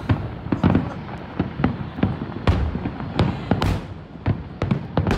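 Fireworks display: aerial shells bursting in a rapid, irregular string of sharp bangs over a continuous low rumble.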